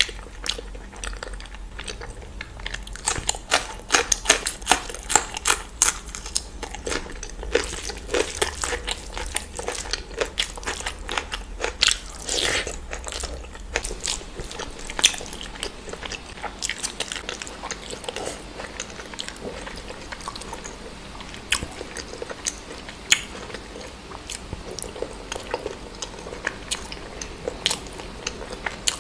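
Close-miked eating: a person biting and chewing food, heard as many short, sharp clicks, thickest in the first half and sparser later.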